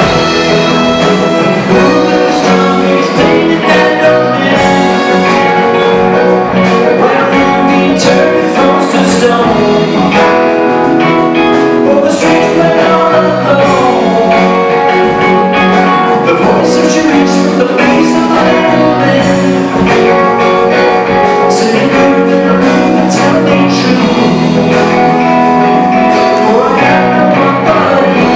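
A live rock band playing a song: electric guitar, drum kit and keyboards together, loud and continuous.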